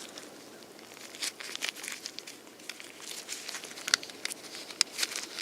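Wiring and a small plastic connector being handled: light rustling with scattered small clicks as wire terminals are worked into the connector housing.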